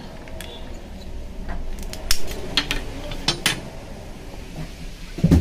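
Hard-shelled, unwashed Kashmiri walnuts being cracked in a hand walnut cracker: a run of sharp clicks and cracks at uneven intervals, the loudest about two seconds in.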